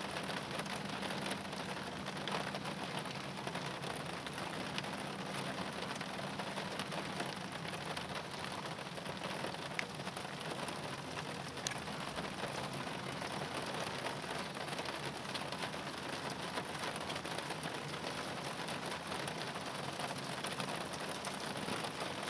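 Steady rain pattering: an even hiss made up of many small drop ticks.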